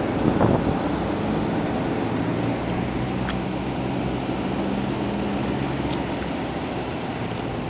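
Small portable generator engine running steadily with a low hum, and a brief louder rush about half a second in.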